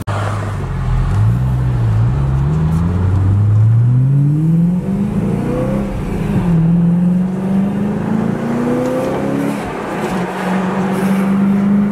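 BMW E90 M3's 4.0-litre V8, fitted with exhaust cutouts, accelerating from inside the cabin: the engine note climbs, drops back at an upshift about five to six seconds in, climbs again, and shifts once more near the end before holding steady.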